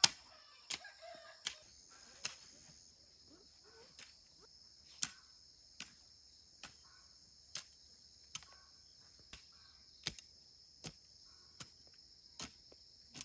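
A steady high-pitched chorus of insects, crickets or cicadas, with sharp knocks at an even pace of about one every 0.8 seconds, like a hand tool striking repeatedly. Faint short calls, fowl clucking, come and go.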